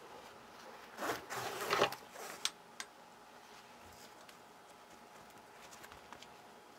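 Nylon webbing strap pulled through a plastic buckle: a rasping slide about a second in, lasting about a second, followed by a couple of light clicks.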